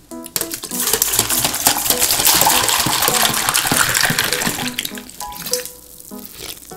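Drink poured from a large plastic bottle into a glass jar mug: a steady splashing stream that runs for about four seconds and stops about five seconds in. Soft background music plays underneath.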